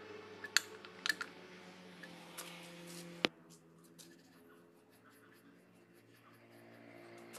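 Sharp metallic clicks of a wrench on the differential drain plug of a Maruti Omni's rear axle as the plug is tightened, with one loud click a little past three seconds, over a steady low hum. After that it goes quieter, with faint rubbing and ticks as the axle housing is wiped with a cloth.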